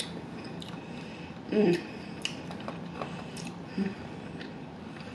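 Close-miked mouth sounds of someone chewing barbecue meat: wet lip smacks and sharp clicks scattered throughout, with a hummed 'mm' of enjoyment about a second and a half in and a shorter one near the four-second mark.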